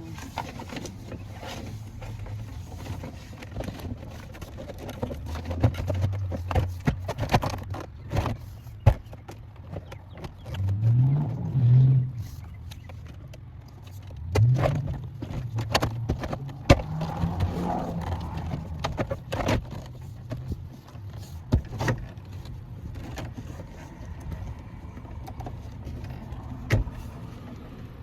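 Scattered clicks, knocks and rattles of parts and tools being handled while a pickup's door is reassembled, with a few short low hums in between.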